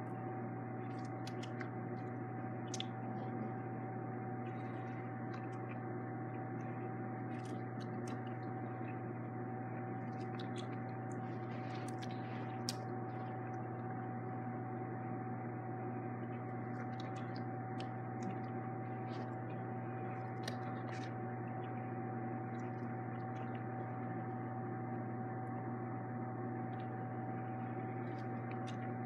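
Steady background hum with a thin high whine, and faint scattered small clicks.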